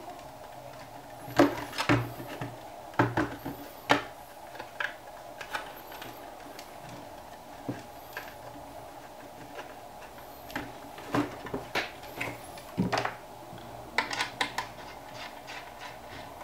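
Hands handling and fitting small parts to the plastic case of an RC transmitter: scattered clicks, taps and light knocks, some in quick clusters, over a faint steady hum.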